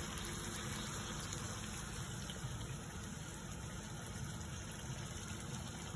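A maida luchi (puri) deep-frying in hot oil: a steady sizzle and bubbling of the oil around the dough.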